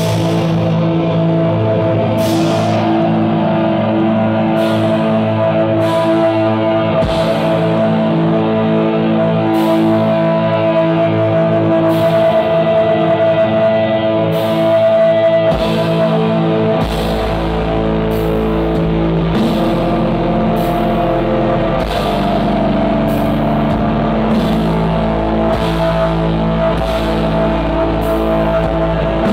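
Black metal band playing live: held, droning guitar chords with drum and cymbal hits. A deep bass comes in a little past halfway, and the hits settle into a steady beat of about one a second.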